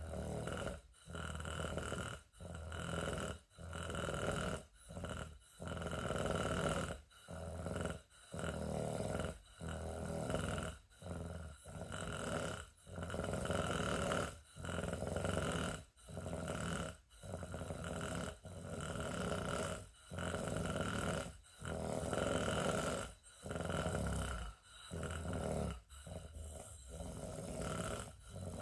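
Rhythmic snoring: rough, noisy breathing sounds follow one another about once a second, with brief pauses between them.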